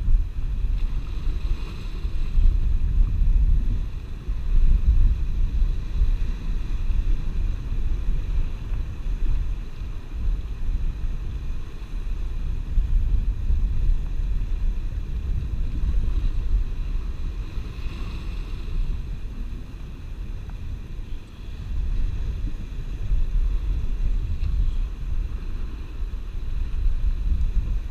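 Wind buffeting the camera microphone with a low, fluctuating rumble, over sea surf washing against the rocks, the surf's hiss swelling briefly twice.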